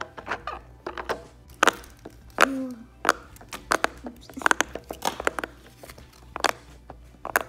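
Silicone pop-it push-bubble fidget toy being pressed with the fingers: an irregular run of sharp popping clicks as the bubbles are pushed through, some coming in quick clusters.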